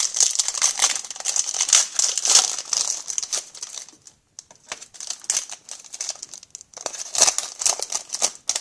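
Wrapper of a 2011-12 Pinnacle hockey card pack being torn open and crinkled by hand. Dense crackling for about three and a half seconds, a brief pause, then more scattered crinkles.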